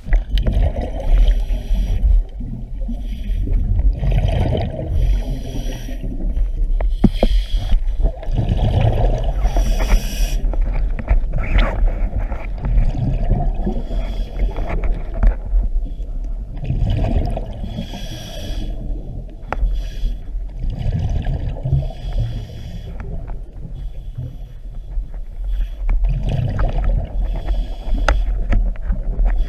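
A scuba diver breathing through a regulator underwater. There is a hiss on each breath in and a low burst of bubbles on each breath out, repeating every few seconds.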